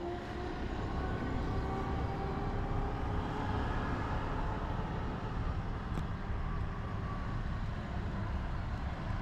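A vehicle engine running with a steady low rumble and a faint, slightly drifting hum. There is a single light click about six seconds in.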